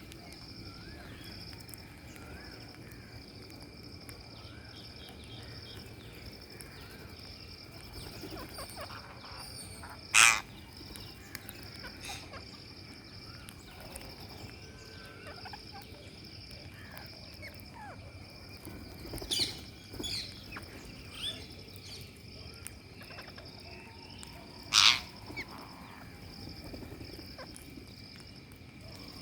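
Rose-ringed parakeets calling: two loud, sharp shrieks about ten seconds apart, with a few shorter calls between them and faint chirping throughout, over a steady high-pitched drone.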